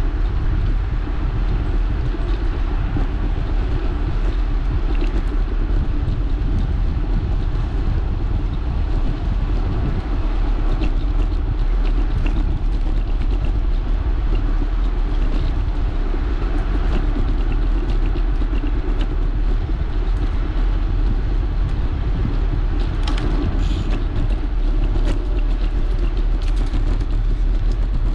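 Steady rumble of wind buffeting the microphone and bicycle tyres rolling on asphalt while riding, heaviest in the deep lows. Scattered small ticks run through it, with a cluster about 23 seconds in.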